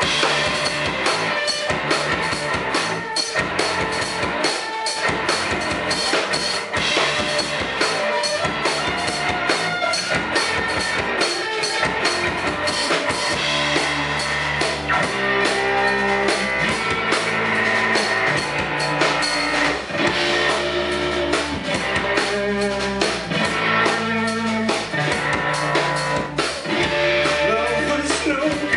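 Rock band playing live without vocals: drum kit, electric bass and two electric guitars. About halfway in, the bass and guitars come in heavier with long held low notes over the drums.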